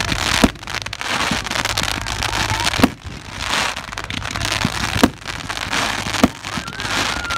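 Fireworks going off: four sharp bangs a second or two apart over a steady crackling hiss, with a short whistle near the end.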